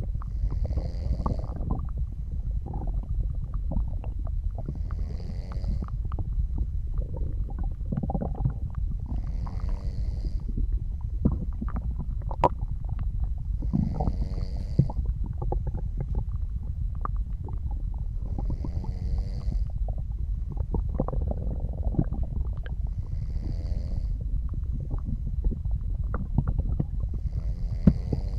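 Human stomach and intestines gurgling and rumbling over a steady low rumble, with a soft snoring breath about every four and a half seconds.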